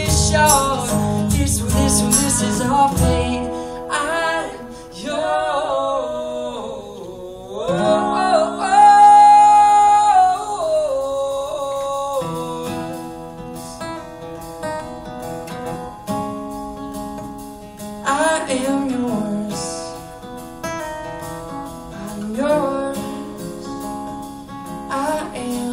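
Live acoustic song: a male singer holding long, sliding vocal notes without clear words over a strummed acoustic guitar, one high note held strongly near the middle. A low accompaniment under the guitar stops about three seconds in.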